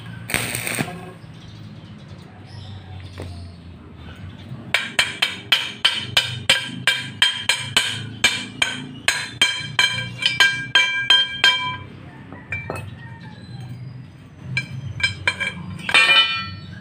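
A stick-welding arc crackles and cuts off within the first second. Then a hammer strikes the fresh weld on the steel pipe about three times a second for several seconds, each strike making the pipe ring with a clear metallic tone, and a few more strikes come near the end.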